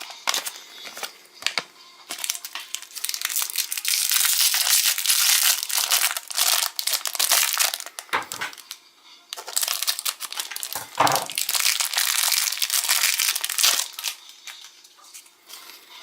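Wrapper of a Kinder Surprise egg being crinkled and pulled open by hand, in two long spells of dense crackling with a short pause between them.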